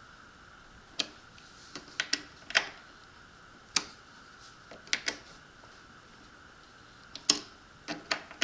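A small hex driver and tiny screws clicking against the plastic thrust cone of an RC jet boat as the cone screws are fitted and snugged down: about a dozen sharp, irregular clicks, some in quick pairs.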